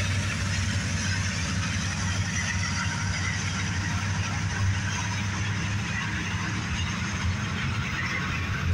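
Freight train passing close by: steady rumble and rattle of double-stack intermodal well cars rolling over the rails, under the low drone of diesel locomotives pulling away.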